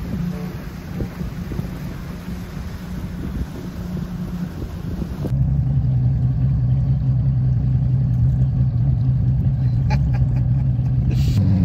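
Bass boat's outboard motor running with a steady low hum over water and wind noise; about five seconds in the sound changes abruptly and the hum becomes louder and lower.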